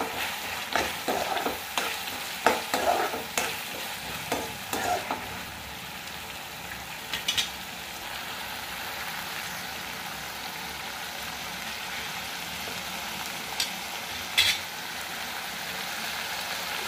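A metal spatula scraping and stirring green peas into onion-tomato masala frying in a kadhai, with sizzling. The stirring stops about five seconds in, leaving a steady sizzle broken by two short clicks.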